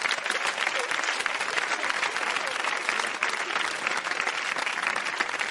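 Live audience applauding after a stand-up comedy punchline: a dense, steady wash of clapping.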